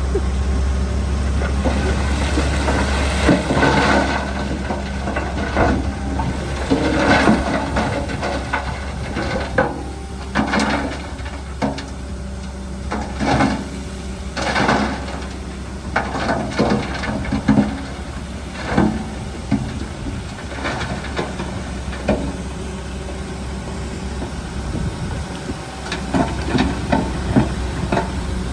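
Heavy diesel earthmoving machinery running steadily, with repeated uneven bursts of stone and dirt scraping and clattering every second or two.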